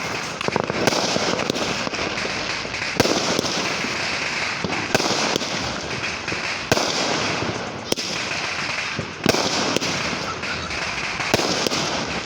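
Fireworks going off: a sharp bang every one to two seconds over a continuous hissing crackle.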